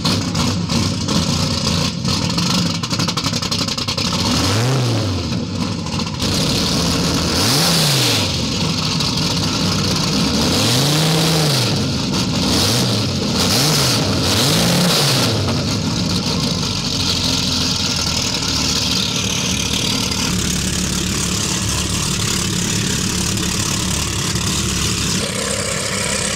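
Big engines of a custom 42-foot Chief powerboat running loudly, revved up and back down about five times in quick succession, then settling into a steady run.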